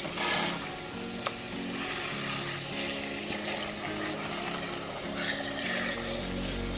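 Garden-hose spray nozzle running, water hissing and spattering over a plucked chicken carcass as it is rinsed inside and out.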